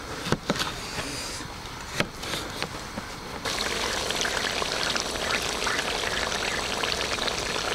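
A knife slicing a bell pepper on a plastic cutting board, with a few sharp taps of the blade on the board. About three and a half seconds in, a steady crackling sizzle starts suddenly: meat cooking in a cast-iron kazan.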